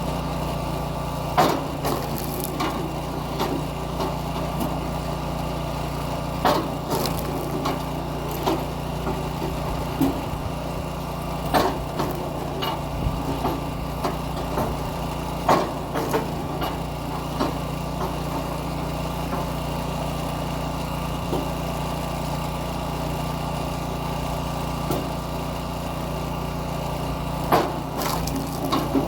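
Kinetic log splitter's small gas engine running steadily, with sharp cracks and knocks every few seconds as logs are split and handled.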